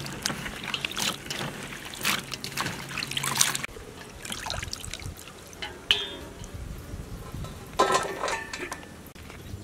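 Hands swishing green vegetables around in a steel basin of water, then lifting them out so the water splashes and trickles back into the basin. The splashing is busiest in the first few seconds and quieter afterwards, with a couple of short, sharper sounds later on.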